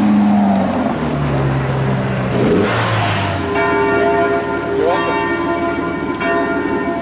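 Maserati GranCabrio's V8 running as the car drives slowly past, its pitch stepping a couple of times. From about halfway through, church bells ring, many steady overlapping tones that take over the sound.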